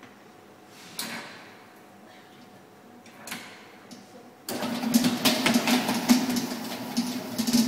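AOCNO bakery planetary mixer being handled with a few clicks, then switched on about halfway through: its motor starts abruptly and runs loudly with a steady hum and a continuous rattling clatter.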